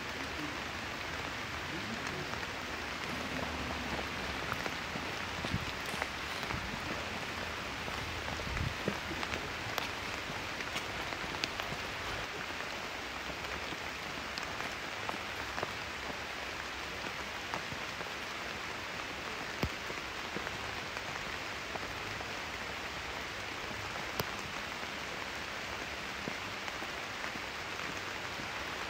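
Steady rain: an even hiss with scattered sharp ticks of single drops.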